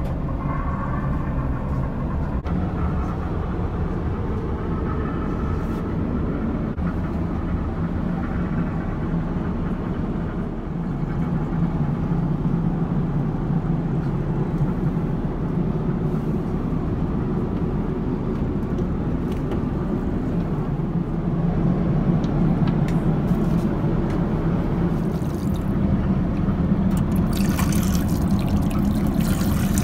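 Steady low drone of a Boeing 777-300ER in cruise flight, airflow and engine noise heard from inside the lavatory. Near the end the lavatory faucet runs water into the metal-and-stone sink with a brief hiss.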